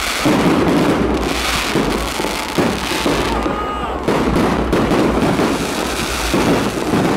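Fireworks display at close range: a continuous, rapid run of bangs and crackling from bursting shells and rising comets, easing briefly about halfway through.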